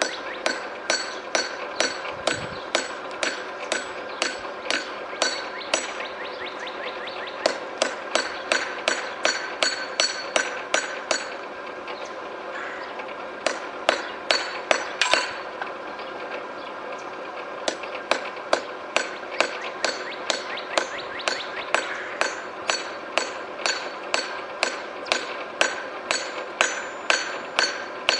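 Hand hammer striking hot steel bar on an anvil, about three blows a second, each blow with a bright metallic ring. The hammering pauses briefly twice around the middle.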